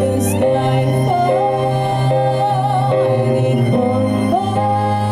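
Live string ensemble playing slow held chords over a low bass, with a high melody line that wavers in pitch.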